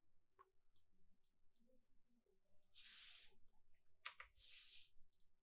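A few faint computer mouse clicks, scattered and quiet, with two short soft hissing sounds between them.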